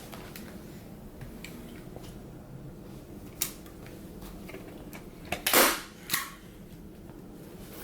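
Staple gun firing staples into an armrest cover: a few sharp snaps, the loudest a little past halfway with a smaller one just after it.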